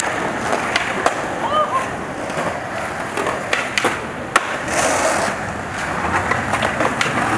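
Skateboard wheels rolling over a concrete sidewalk, clicking over the pavement joints, with a sharp clack of the board about four seconds in.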